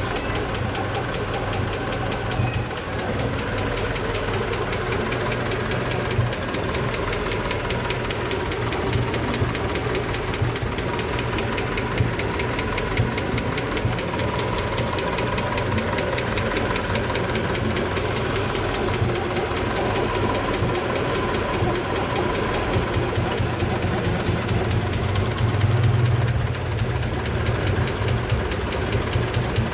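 1988 Honda engine running steadily with a fast, even ticking over its hum, briefly louder near the end. The ticking is the fault the owner is asking about; its cause is not known.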